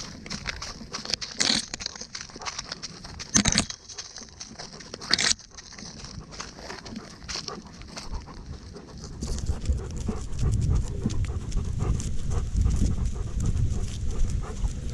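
A dog panting close to the microphone, with a run of small clicks and three louder sudden noises in the first five seconds, then a low rumbling noise from about nine seconds in.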